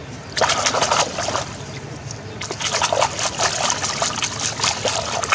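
Catfish thrashing in a wire-mesh basket in shallow water, splashing in two bouts: a short one about half a second in and a longer, more sustained one from about two and a half seconds on.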